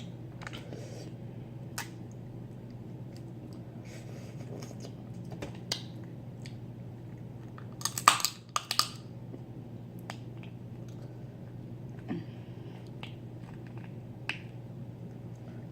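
Hard snow crab claw shell being cracked open with the teeth: scattered sharp clicks and snaps, with a loud burst of cracks about eight seconds in.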